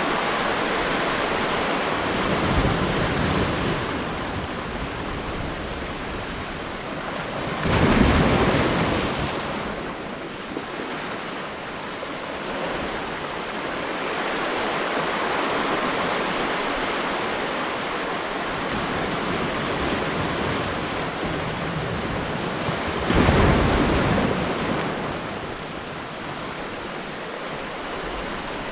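Steady rush of water, swelling louder twice, about eight and twenty-three seconds in.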